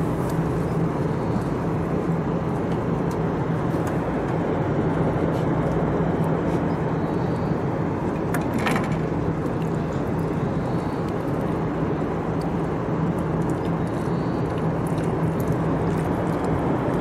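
Steady outdoor background rumble with a constant low hum under it, unchanging throughout, and one short, sharper sound about nine seconds in.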